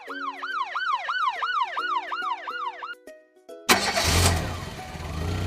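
Police-style siren sound effect wailing in quick rise-and-fall sweeps, about three a second, over light background music; about three and a half seconds in it stops and an engine starts with a sudden loud burst, then runs on at a steady idle.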